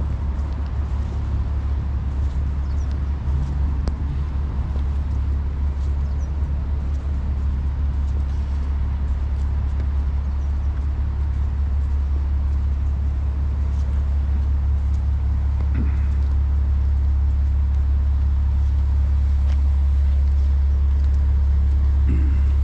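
A steady low engine rumble that grows slowly louder.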